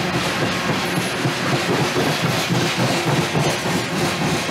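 Norfolk Southern freight train rolling past, its cars clattering steadily with rapid irregular clicks of wheels over the rail joints.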